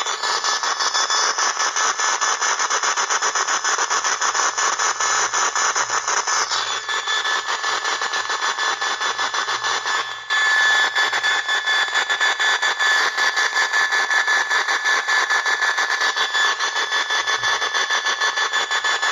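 Radio receiver hissing and buzzing with interference from a running microwave oven, a harsh rasping noise pulsing rapidly with a steady whistle over it. It drops out briefly about ten seconds in, then comes back a little louder.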